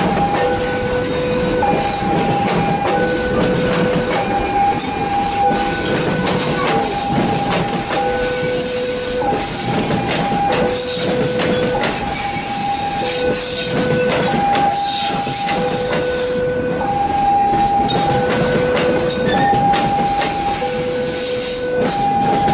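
Level crossing warning alarm sounding a steady electronic two-tone, high and low alternating about once a second, while a train passes close by with continuous rumble and wheel clatter.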